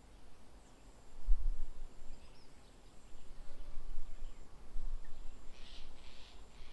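Outdoor garden ambience: faint bird calls, with a cluster of harsher, louder calls about five and a half seconds in, over an uneven low rumble that is loudest just after a second in. A thin steady high-pitched tone runs underneath.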